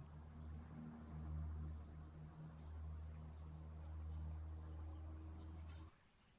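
Crickets chirring steadily at a high pitch, under a low steady hum that cuts off abruptly near the end.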